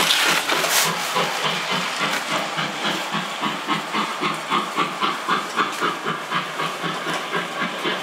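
Model Jubilee-class steam locomotive running on the layout, giving a steady rhythmic chuffing with hiss, about three chuffs a second. A louder burst of hiss comes in the first second.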